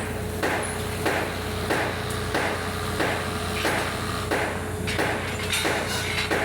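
Regular hammer strikes, about three every two seconds, over the steady hum of a running engine.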